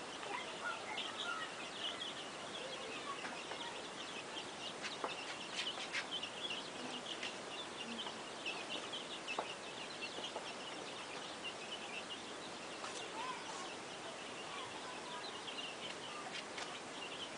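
A flock of chickens clucking and cheeping without pause, a dense high-pitched chatter, with a few sharp taps near the middle.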